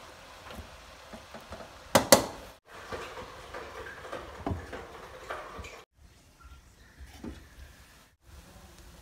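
Cookware clatter on a wide frying pan: two sharp, loud knocks about two seconds in, as a glass lid is set on the pan, then lighter clicks and scraping from a metal spatula.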